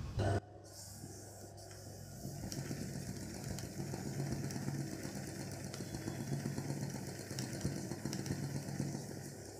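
A Salson sewing machine, a zigzag machine set up for straight stitching, runs steadily as it stitches embroidery through cloth held in a hoop. It gets a little louder about two and a half seconds in, after a brief noise at the very start.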